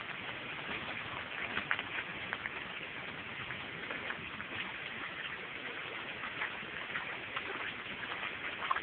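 Rain falling: a steady hiss full of many small, irregular ticks.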